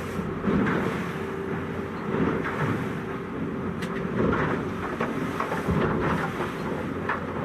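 A 7.5 m center cabin boat running through rough sea: a steady engine hum under the rush of water against the hull and wind buffeting the microphone, the noise surging every second or two as the boat meets the waves.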